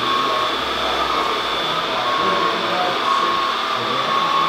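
Radio-controlled Volvo model wheel loader's electric drive and hydraulic pump running with a steady high whine as the bucket is raised. The pitch steps slightly up and down.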